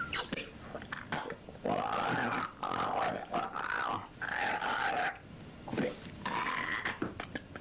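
Growling, grunting vocal sounds in about four drawn-out bouts with short gaps between them.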